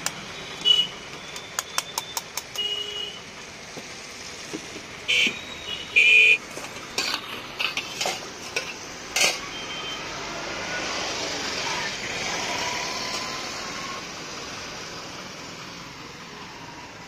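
Stainless-steel utensils and vessels clinking and clanking: scattered knocks and light taps, several ringing briefly like a steel ladle or bowl struck on a pot. Midway a broad rush of traffic noise swells and fades.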